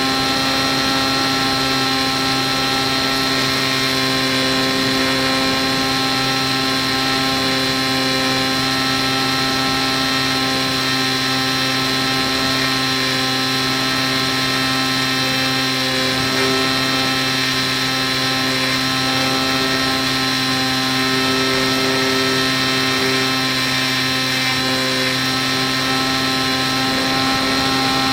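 Small RC plane's electric motor driving a 7x5 propeller at a steady cruise throttle: an even drone with a high whine that holds its pitch throughout.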